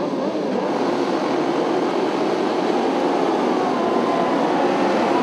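A full grid of superbikes accelerating away from a race start together: many engines at high revs blend into one dense roar, with single bikes' pitch rising through it as they pull away.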